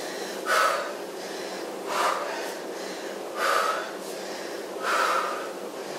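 A woman's forceful exhales, one with each twist of a Russian-twist exercise, coming about every one and a half seconds; four in all.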